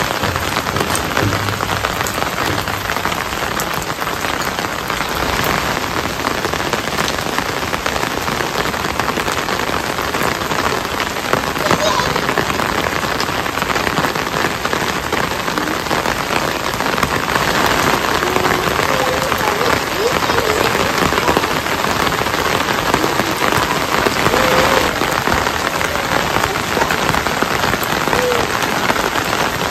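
Steady rain falling and pattering on surfaces, a dense, even hiss that holds at one level throughout.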